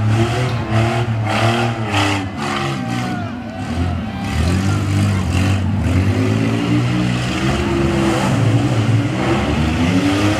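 Several demolition-derby minivan engines revving at once, their pitch rising and falling as they push and ram, with a few sharp knocks in the first couple of seconds and again about five seconds in.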